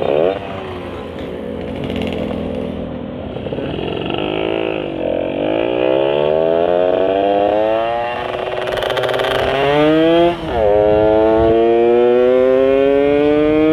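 Two-stroke Yamaha Sigma underbone engine, fitted with a 30 mm Uma carburettor and a frog-type intake manifold, accelerating hard under way: its pitch climbs steadily, drops sharply at a gear change about ten seconds in, and climbs again. The intake has the deep 'ngorok' snore that comes with the frog manifold.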